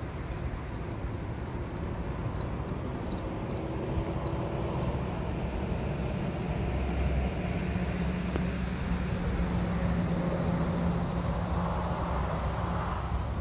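Low outdoor rumble with a distant motor's steady hum that grows louder in the second half, then eases off near the end. A few faint high chirps sound in the first few seconds.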